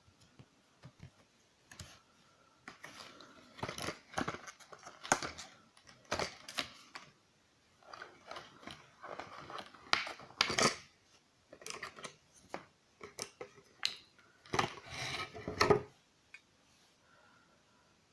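Packaging being handled and opened by hand: irregular clicks, taps and short rustles, with a longer rustle near the end.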